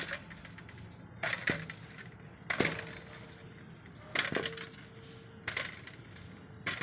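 Baked litti being picked by hand out of smouldering cow-dung-cake embers and ash in a metal pan: short scrapes and crackles of ash and charred fuel, six times, about every second and a half.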